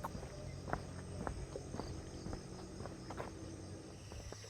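Footsteps walking along a road, about two steps a second, over a steady high chirring of insects.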